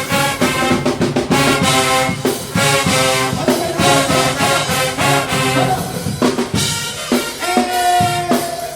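HBCU marching band playing loud brass music, full horn section with drums, in short punched notes that give way to a long held note near the end.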